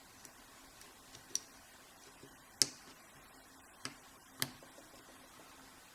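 Lock pick and tension wrench working the pin stack of a Brinks Commercial laminated steel padlock during single-pin picking: a few scattered sharp metallic clicks, the loudest about two and a half seconds in.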